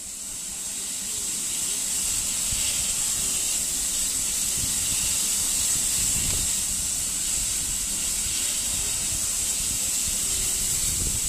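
Steady hiss of steam from a steam locomotive, with a low rumble beneath it.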